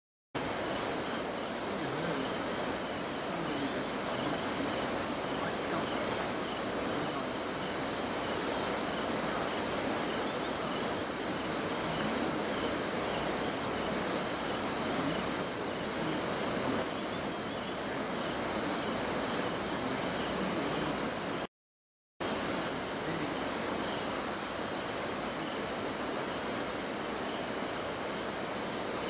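A steady, high-pitched insect chorus rings continuously over the rushing of a river flowing through rapids. All sound cuts out for under a second about two-thirds of the way through.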